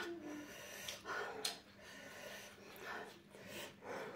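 A person breathing hard and blowing out through the mouth in short puffs against the burn of very spicy ghost-pepper noodles, with a few small clicks from eating.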